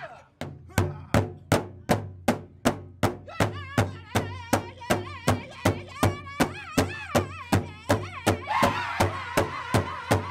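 Powwow drum group beating one large drum in unison with drumsticks, a steady beat about two and a half strokes a second. A lead singer's high wavering voice comes in about three seconds in, and near the end the whole group joins in loud high singing over the drum.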